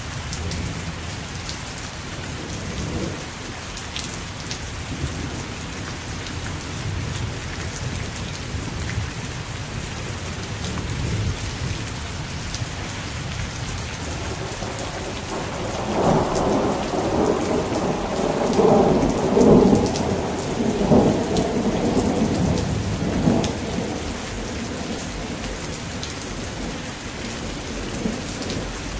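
Steady rain falling, with a long roll of thunder rumbling through the middle for about seven seconds.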